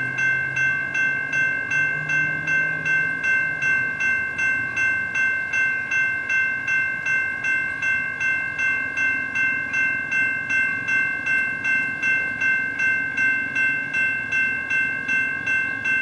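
A train bell rings steadily, about two strikes a second, on a Sounder commuter train's Bombardier cab car as it pulls slowly into the station.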